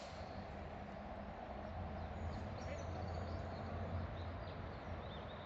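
Kuma River water rushing steadily, with a few short bird chirps. A low rumble swells in the middle and then eases.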